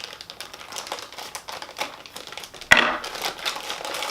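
Plastic packaging crinkling and small clicks as toy parts are handled, with one sharp clack a little under three seconds in.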